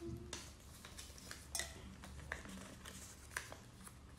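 Small folded paper lottery slips being unfolded by hand: scattered soft crinkles and light ticks of paper, over a faint low room hum.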